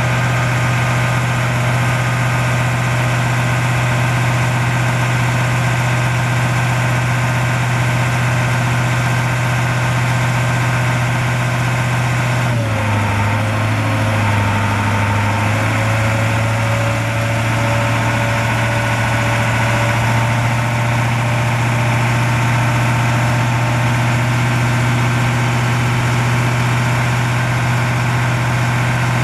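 Caterpillar 3208 V8 diesel of a 1987 Ford F800 digger derrick truck running steadily at idle, driving the boom hydraulics as the boom is lowered and raised. About twelve seconds in the engine note dips slightly, and a faint high whine comes and goes for several seconds.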